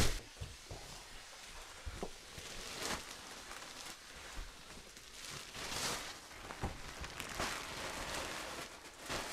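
Thin plastic wrapping crinkling and rustling as it is pulled off a new mattress and bunched up by hand, in several short bursts.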